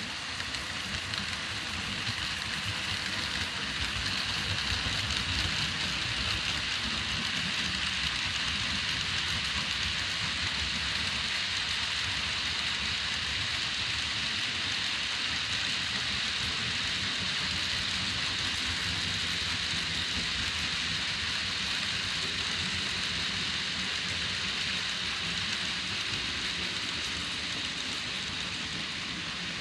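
Model freight train rolling past on the layout: a steady rattling rush of many small metal wheels on the rails, with a low rumble, building over the first few seconds and easing slightly near the end.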